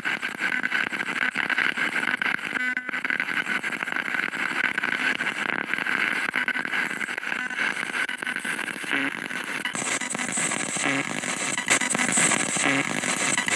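Spirit box sweeping rapidly through radio frequencies: a continuous harsh static, finely chopped as it jumps from station to station. About ten seconds in the hiss turns higher and brighter.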